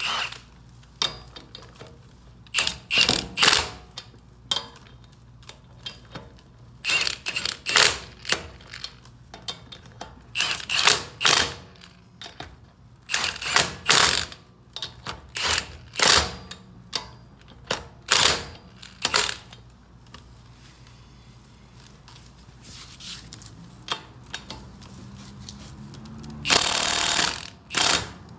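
Milwaukee cordless impact wrench run in short trigger bursts, spinning lug nuts onto the wheel studs, with one longer burst near the end.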